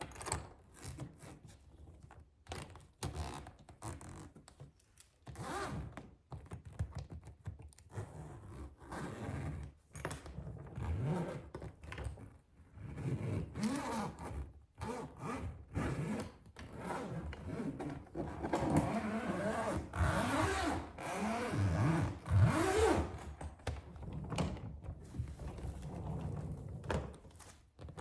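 Suitcase handled close to the microphone: irregular knocks, scrapes and rubbing on it, busier and louder in the second half.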